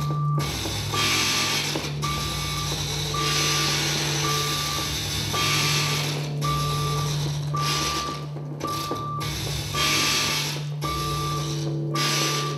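Electronic performance soundtrack: a short beep repeating about once a second over a steady low hum, with waves of hiss rising and falling, in a mechanical, reversing-alarm-like texture.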